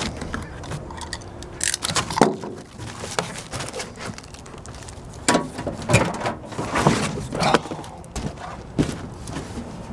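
Packaging being handled and pulled away from a steel chest: irregular rustling with scattered knocks and clunks, loudest about two seconds in and again between five and eight seconds.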